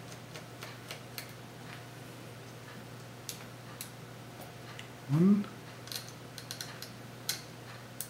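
Small precision screwdriver working tiny screws out of a tablet's Mini PCIe wireless card: scattered light metallic clicks and ticks, a little busier near the end.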